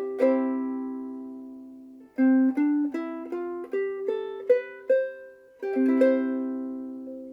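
Famous FS-5G soprano ukulele, with a laminated Hawaiian koa body and fluorocarbon strings, played solo. A chord is left to ring and fade, then a run of single picked notes starts about two seconds in, and another chord rings out near the end.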